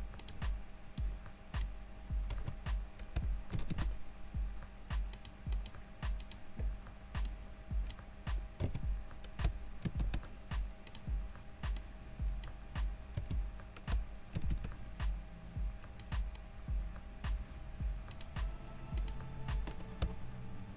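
Computer keyboard and mouse clicking: key presses and clicks as the same menu is pasted slide after slide with Ctrl+V, over faint background music with a steady low beat.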